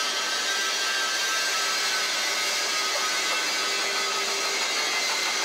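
Universal milling head on a horizontal boring machine running steadily: a continuous machine whir with several steady whining tones.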